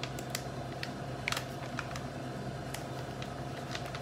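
Plastic pouch of ready-boiled eggs being pulled open by gloved hands: a handful of sharp crinkles and ticks of the plastic, scattered over a steady hum.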